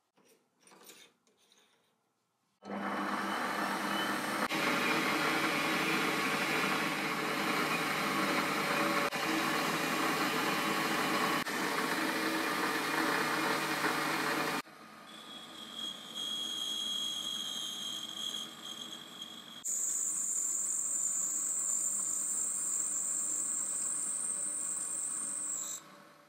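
After a few faint clicks, a power tool runs loudly and steadily while a steel pin is sanded against its abrasive belt. It stops suddenly. Then a rotary tool with a cut-off wheel whines at high speed, first running lighter with a steady tone and then cutting through a steel rod, until it stops near the end.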